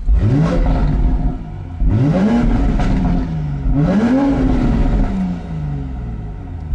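Manhart MHZ4 440's 3.0-litre turbocharged B58 inline-six, warm and in sport mode, revved three times while parked through Manhart's export exhaust. Each rev rises and falls, and the engine settles back to idle after the third.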